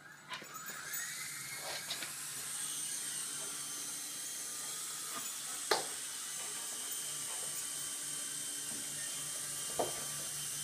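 Traxxas DR-1 coaxial RC helicopter's electric motors spooling up with a rising whine, then the steady high whine of its rotors as it flies. Two sharp knocks are heard, one about halfway through and one near the end.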